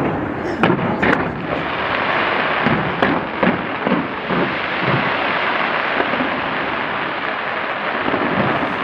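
Fireworks show going off in a dense, continuous barrage of bursts and crackle, with a few sharp, louder bangs in the first three seconds.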